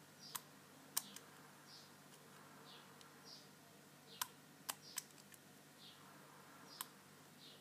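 Small sharp metallic clicks of a lock pick and tension wrench working the pins of an American Lock 1105 padlock, about seven irregular clicks with pauses between them. A faint high chirp repeats about every three quarters of a second behind them.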